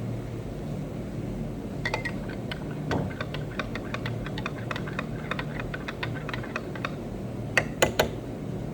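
A small spoon stirring coffee in a cup, with light, quick clinks of metal against the cup about three or four times a second. Near the end come three louder taps in quick succession.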